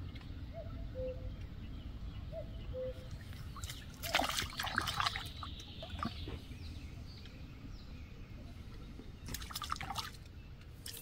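A hooked crucian carp splashing at the water's surface as it is played in on a float rod, in a bout of splashing about four seconds in and a shorter one near the end.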